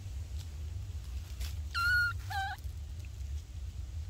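Baby monkey giving two short, high calls in quick succession about two seconds in, the first a steady high note, the second lower and stepped.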